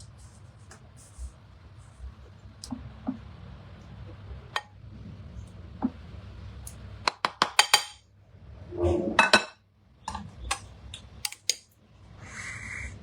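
Spoon and cookware clinking: a few light taps, then a quick run of clinks about seven seconds in and louder knocks around nine seconds.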